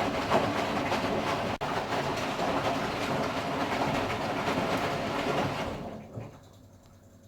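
Candy Formula Inox P 7.71X washing machine running with a loud, steady, rattling drum noise, most likely its final spin. About six seconds in the noise falls away sharply to a faint hum as the spin stops and the drum slows.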